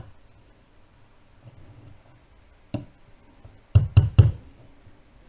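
Light hammer taps on the back of a wristwatch, pressing its snap-on caseback into place. There is one tap a little past halfway, then a quick run of about four taps about a second later.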